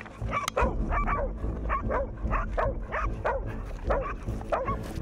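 Pig dogs bailing a wild boar: rapid, repeated barking, about three barks a second, over a steady low rumble.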